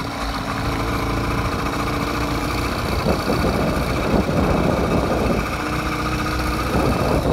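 80cc gas engine of a motorized bike running steadily while riding, its even tone breaking up into rougher noise for a couple of seconds in the middle.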